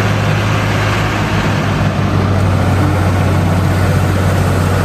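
Heavy six-wheel-drive fire truck's diesel engine running steadily with a constant low hum, under an even hiss.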